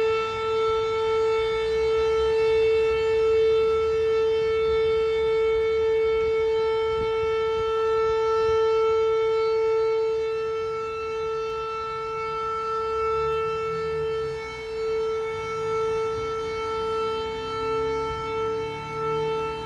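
Air-raid siren sounding one long steady tone that holds a single pitch without rising or falling, a little weaker in the second half.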